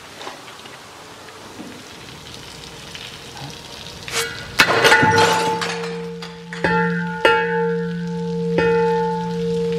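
Liquid trickling and dripping, then about four seconds in a hanging metal pipe swings into glass bottles and smashes them. The pipe goes on ringing like a tubular bell, clanging again a few more times and ringing on each time.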